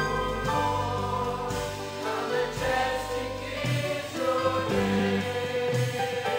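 Church choir singing a gospel song in sustained, held chords, backed by a live band.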